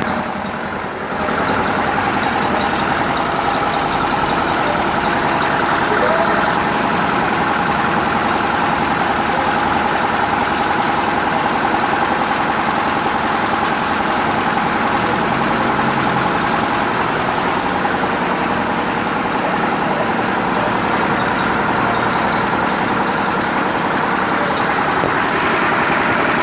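Paving block machine running steadily: a continuous loud mechanical drone with a constant tone through it.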